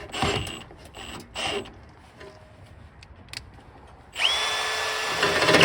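A few short knocks, then about four seconds in an electric drill starts with a quickly rising whine and runs steadily under load, boring out a pivot hole to take a 1-inch pin.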